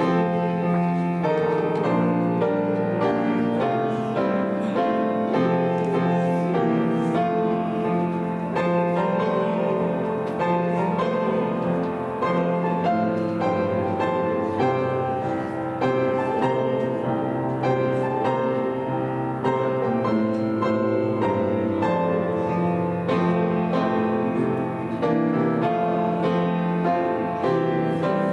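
Piano playing a slow piece of held chords and melody notes at a steady volume.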